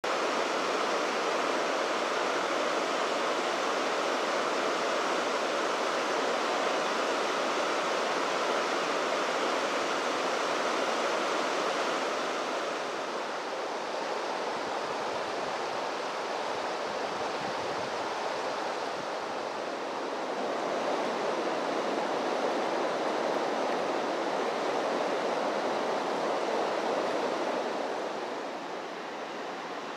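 River water rushing over rocks and shallow rapids, a steady even rush that dips slightly in level about halfway and again near the end.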